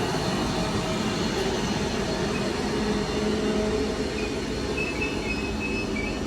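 Class 331 electric multiple unit standing at the platform, its onboard equipment giving a steady, even hum.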